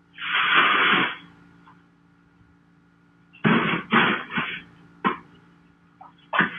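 A person coughing: one long cough at the start, then a run of several quick coughs about three and a half seconds in and more near the end, over a faint steady hum.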